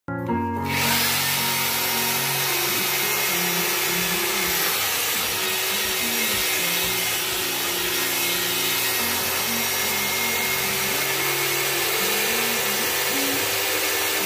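Electric drill turning a paddle mixer through tile mortar in a plastic bucket, starting about half a second in and running steadily. Background music plays underneath.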